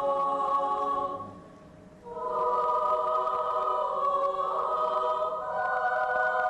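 Children's choir singing in parts: a held chord ends about a second in, and after a short breath a new sustained chord begins, moving to higher notes near the end.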